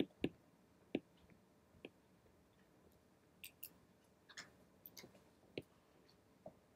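Faint, irregular clicks of a stylus tapping on a tablet's glass screen, about a dozen light taps spread unevenly, with a few coming in quick pairs.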